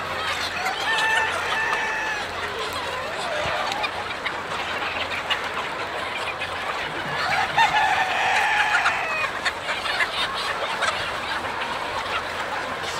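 A large flock of chickens clucking all together in a dense, continuous din. A rooster crows about a second in, and again with a longer crow around seven to nine seconds in.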